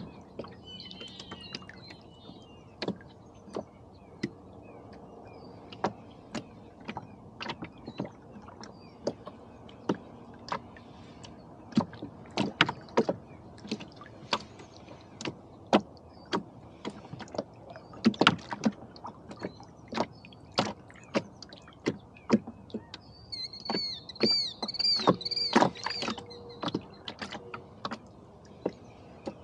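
Small waves lapping against a drifting rowboat's hull, with irregular sharp slaps and knocks one to two times a second. A short run of high chirping bird calls comes near the end.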